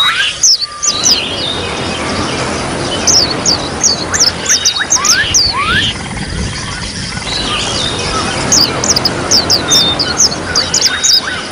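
Trickling water as a steady, even rush, with small songbirds twittering over it. There are quick runs of high, falling chirps about three seconds in and again from about eight and a half seconds, and scattered lower whistled notes between them.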